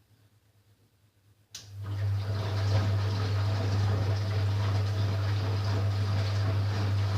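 Ariston Quadrifoglio LB476ST washing machine switching on its water flow about a second and a half in: a strong steady low hum starts suddenly under a loud rush of water.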